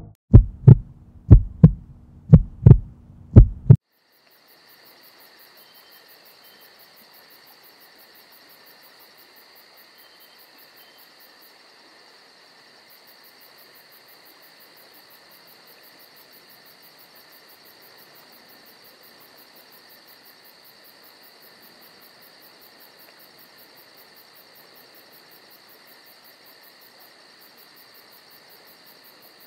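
A quick run of deep heartbeat-like thumps over a low hum in the first few seconds, cutting off suddenly. Then a faint, steady chorus of crickets chirping.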